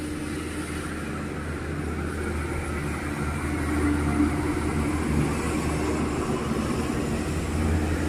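Car on the move: a steady engine hum and road noise, slowly growing louder.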